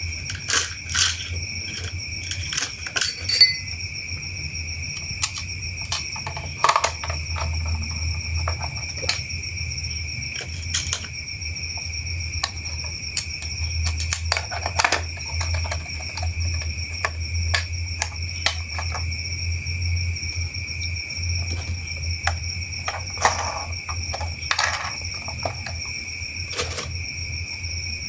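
Irregular plastic clicks and light knocks of toy parts being handled and fitted together, over a steady high-pitched whine and a low hum.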